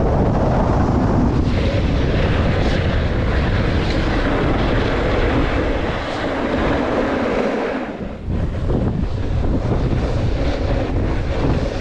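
Loud, steady wind rushing over the microphone, dipping briefly about eight seconds in.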